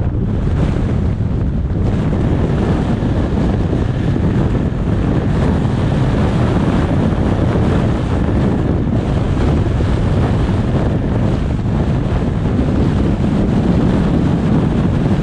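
Steady rumble of a car driving, dominated by wind buffeting the microphone together with road noise.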